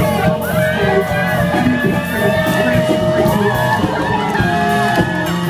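Live rock band playing, with guitar, drums and a singing voice over a steady beat.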